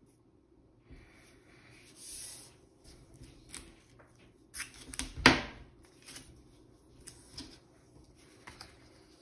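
Hands working at a drawing board with measuring tools: scattered light clicks and rustles, a brief scrape about two seconds in, and a short run of knocks ending in one sharp knock just after five seconds.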